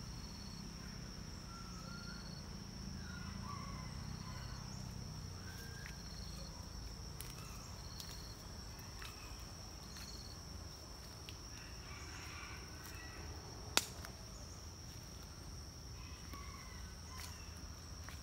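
Orchard ambience: insects keep up a steady high-pitched drone, with short repeated chirps and scattered bird calls over a low rumble. A single sharp click comes about three-quarters of the way through.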